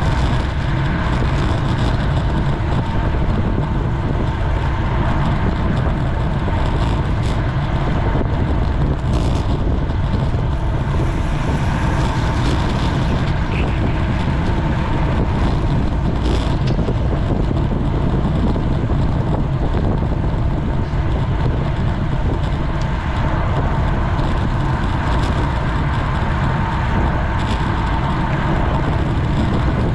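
Steady wind rush over a GoPro's microphone on a bicycle moving at racing speed: an even, unbroken noise heaviest in the low end.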